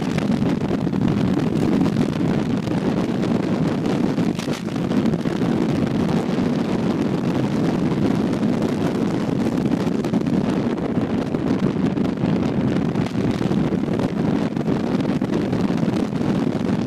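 Buell Ulysses XT's 1203 cc air-cooled V-twin running steadily while the motorcycle cruises, mixed with wind rushing over the microphone.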